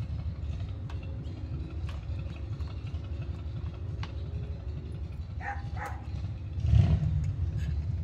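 A steady low rumble with scattered light clicks and knocks of e-bike parts being handled, and a louder thump-like swell about seven seconds in.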